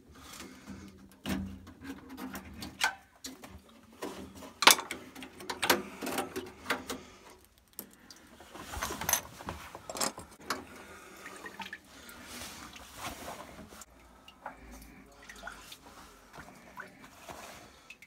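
Irregular clicks, knocks and scraping of plastic and metal parts being handled as the plastic flow turbine is unclipped from a Worcester Bosch combi boiler and taken out. The loudest knock comes about five seconds in.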